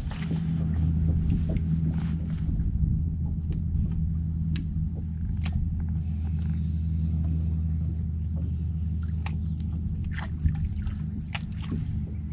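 Boat motor running with a steady low hum that fades near the end, with a few scattered light clicks and knocks over it.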